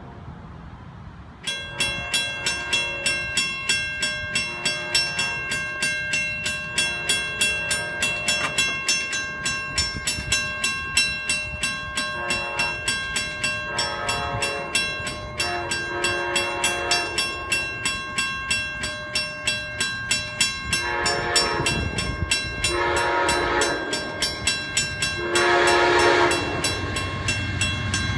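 Railroad grade-crossing bell starts ringing about a second and a half in, a rapid steady run of dings as the crossing activates. About halfway through, an approaching Amtrak GE P42 Genesis diesel locomotive sounds its horn for the crossing: a series of held blasts that grow louder as the train nears.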